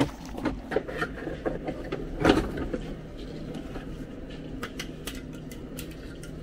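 Light clicks and knocks of parts being handled in a car door, with one louder knock about two seconds in, over a steady low hum.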